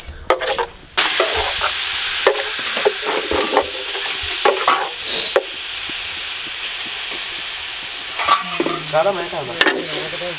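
Grated carrots sizzling in a hot aluminium kadhai on a gas burner. The hiss starts suddenly about a second in and holds steady, with light taps and scrapes as handfuls go in from a brass bowl. A voice is heard briefly near the end.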